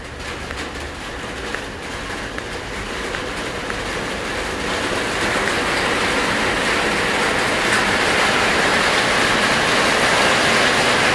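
Steady rain, an even hiss that grows steadily louder.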